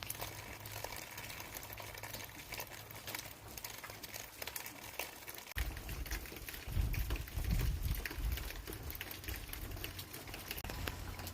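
Steady rain falling, a dense patter of fine drop ticks. A low rumble joins a little past halfway and is loudest for a second or so.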